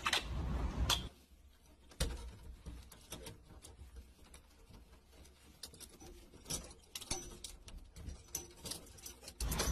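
Faint rustling of paper and light clicks as a tissue is folded and tied to a thin wire by hand, with louder handling bumps in the first second and a sharp click about two seconds in.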